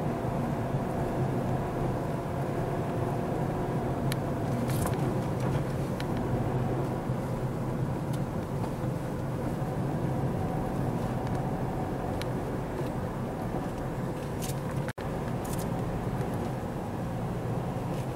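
Car engine and tyre noise heard from inside the cabin while driving: a steady drone with a low engine hum. There are a few faint ticks and a momentary cut-out about fifteen seconds in.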